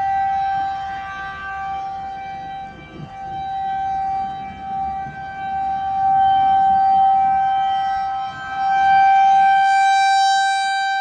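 Outdoor tornado warning siren sounding one steady high tone, held without a pitch change, its loudness swelling and fading several times.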